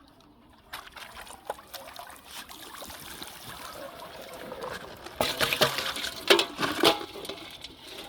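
Water sloshing and splashing, with small clicks and trickles throughout and louder splashes from about five to seven seconds in.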